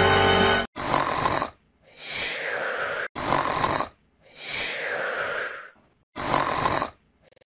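Cartoon snoring sound effect for a sleeping dinosaur: a repeating cycle of a short rasping intake and a longer drawn-out breath, heard about three times with pauses between. Music stops suddenly just under a second in.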